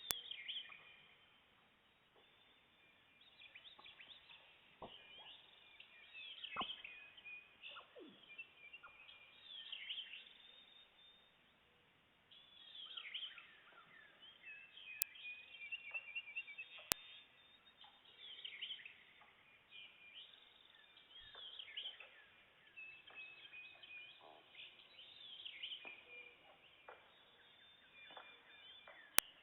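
Woodland birdsong from several birds at once, with short whistled notes and trills coming in overlapping waves. A few single sharp clicks or knocks cut through it, one about halfway in and one near the end.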